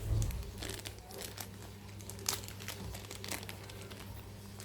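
Packaging crinkling and rustling in irregular bursts as a parcel is unwrapped, with a dull bump right at the start.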